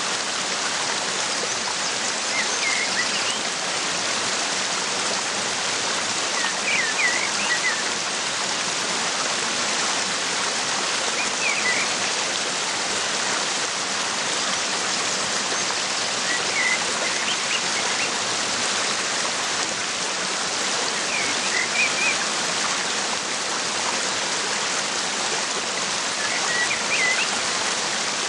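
Waterfall rushing steadily, a dense even roar of falling water. Birds chirp briefly over it every four or five seconds, each a quick cluster of high chirps.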